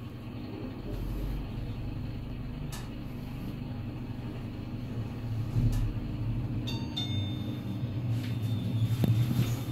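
Hyundai LXVF scenic passenger elevator car travelling, with a steady low rumble and hum. A thin high tone comes in about seven seconds in, and the rumble swells near the end as the car nears its stop.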